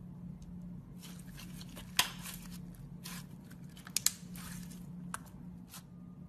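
Hand-played glitter slime being squished and stretched, making crackly, wet crinkling noises with a few sharp pops: one about two seconds in, a double one about four seconds in. A steady low hum runs underneath.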